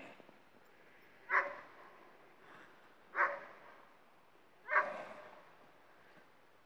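A dog barking three times, about a second and a half apart.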